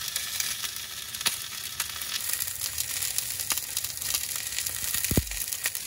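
Sausages sizzling and crackling in hot fat in a frying pan, a steady hiss dotted with small spits. A brief low bump about five seconds in.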